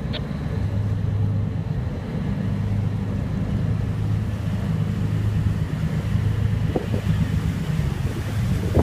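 A steady low engine rumble, with some wind noise on the microphone.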